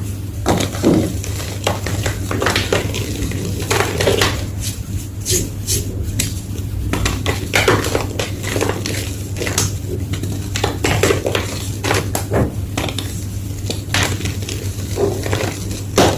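Colourful gym chalk being crushed, giving a steady run of irregular crunches and crackles, with a steady low hum underneath.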